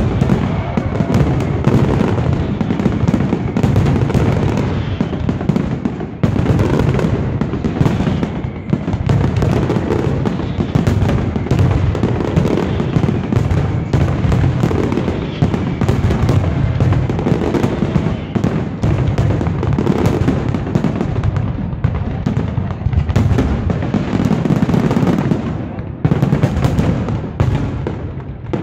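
Fireworks display: aerial shells bursting in a dense, unbroken barrage of booms and crackling, with brief lulls near the end.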